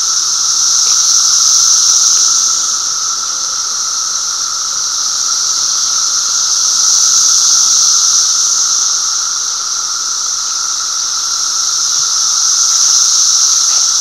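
A dense chorus of 17-year periodical cicadas in the treetops: a loud, steady high-pitched whine with a lower hum beneath it, swelling and easing every few seconds.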